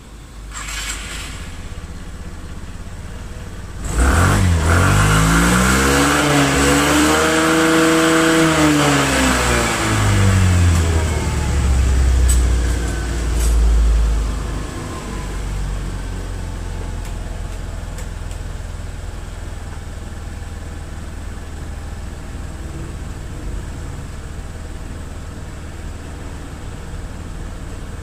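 Suzuki Skydrive 125 scooter's single-cylinder four-stroke engine starting about four seconds in, revved up and back down, blipped once more, then settling into a steady idle. This is the first start after its wiring harness was replaced.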